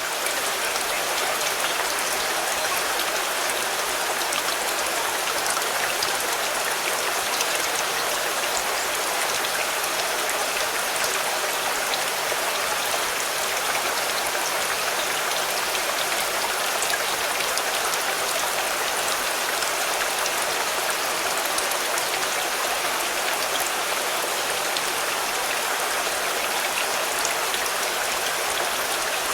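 Steady rain falling on a car, an even hiss with individual drops ticking through it.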